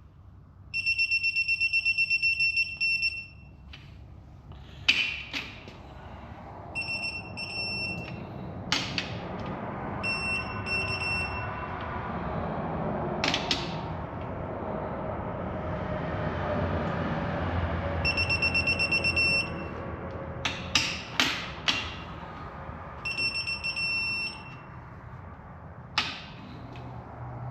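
Electronic digital torque wrench beeping in rapid pulsed bursts as each main cap bolt reaches its 15 ft-lb target, five times, with sharp clicks between the bursts.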